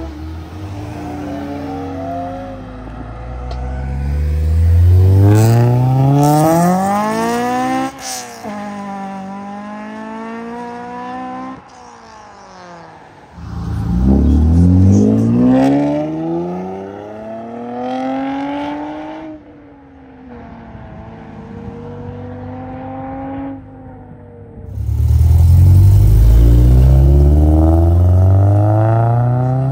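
Modified cars accelerating away one after another. The engines rev up in a rising pitch and drop back between pulls. There are three loud pulls, about five seconds in, about fourteen seconds in, and near the end.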